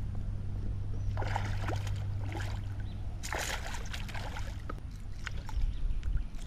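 Water sloshing and splashing against a small fishing boat, in a few short bursts, over a steady low hum.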